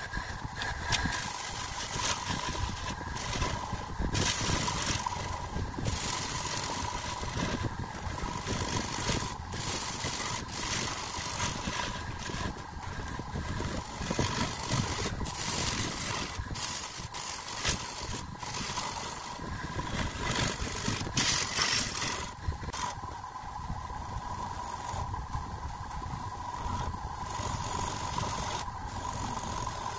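Wood lathe running with a steady whine, irregular rattling and scraping over it from a tool cutting the spinning wood.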